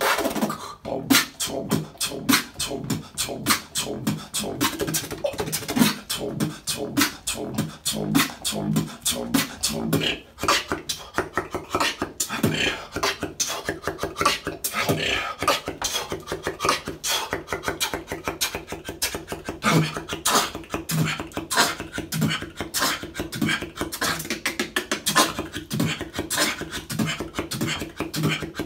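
Solo vocal beatboxing: a fast, steady rhythm of mouth-made kick, snare and hi-hat sounds with a pitched bass line underneath, unbroken by words.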